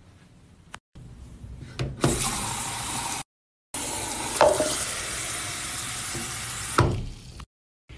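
Bathroom sink faucet running into a cup: a steady loud hiss of water that starts about two seconds in, breaks off for half a second at a cut, then runs on until near the end, with a couple of short knocks from the cup.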